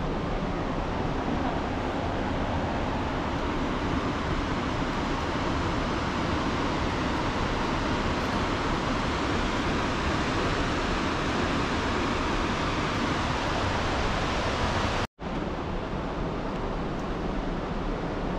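Steady, even rushing noise of open-air ambience, with no distinct events, cut off for a split second about fifteen seconds in and then resuming.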